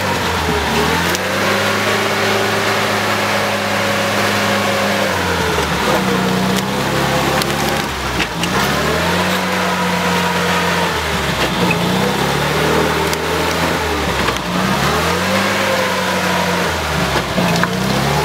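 UAZ off-roader's engine revving hard in low gear as it churns through deep mud, its pitch surging up and dropping back about five times. A few sharp cracks of branches under the tyres.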